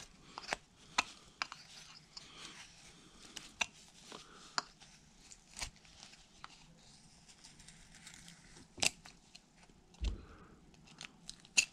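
Carving knife cutting into basswood: a run of short, irregular slicing clicks as the blade works into the wood, the sharpest cuts about nine seconds in and near the end.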